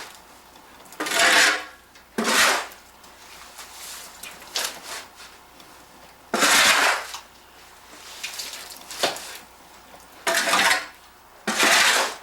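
Five short scraping strokes, each about half a second long, spaced a few seconds apart.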